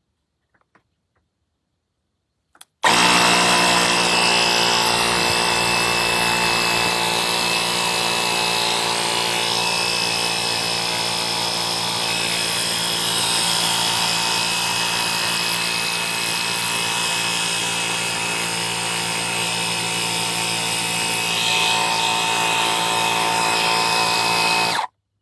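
Powools cordless tire inflator's small compressor motor running steadily for about 22 seconds, starting suddenly about three seconds in and cutting off suddenly near the end. A few faint clicks come just before it starts.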